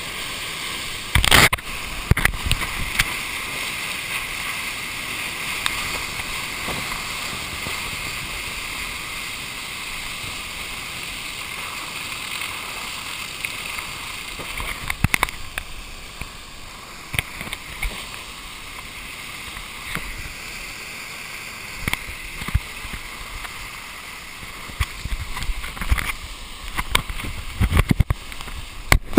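The breaking whitewater of a river tidal bore rushing steadily right beside a camera at water level, with sharp splashes of spray hitting the camera now and then, several of them near the end.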